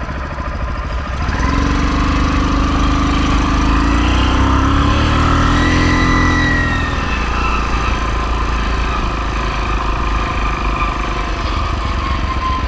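49cc Motoped motorized bicycle engine pulling away about a second in, its pitch climbing as it accelerates, then easing off to a steadier, slightly quieter cruise about halfway through.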